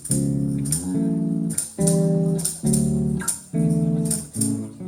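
Small band playing an instrumental break with no singing: chords in short, repeated phrases over a bass line, with a regular high percussion tick.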